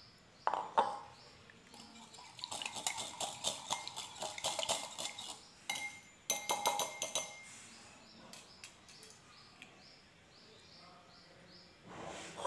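Wire whisk beating a thin wheat-flour-and-water batter in a glass bowl. The wires clink rapidly against the glass. A couple of strokes come first, then a few seconds of fast whisking, then a shorter second bout.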